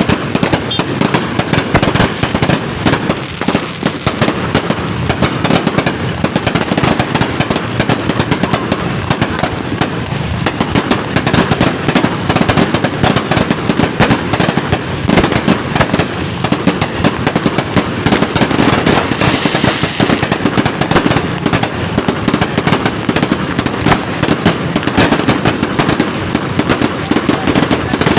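Dense, continuous New Year fireworks: many shells and firecrackers bursting and crackling in rapid succession, with no pause between bangs.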